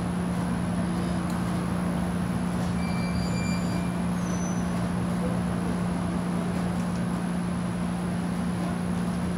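Steady low hum over an even hiss, with a thin constant high whine and a few faint short chirps about three to four seconds in.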